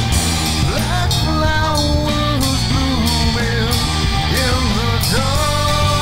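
Rock music instrumental passage: a lead melody slides up into long held notes over steady bass and drums, with regular cymbal hits.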